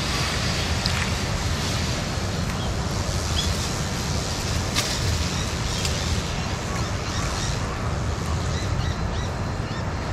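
Outdoor ambience of wild birds chirping now and then over a steady low rumble.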